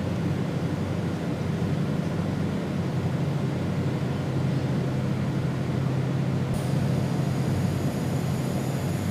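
CNC machining center running while a face mill cuts aluminum: a steady low machine hum. About six and a half seconds in, a thin high-pitched whine joins it.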